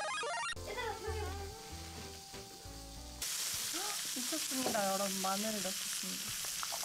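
Pork belly sizzling on a grill pan. The sizzle starts suddenly about three seconds in, after a stretch of background music, and runs on steadily.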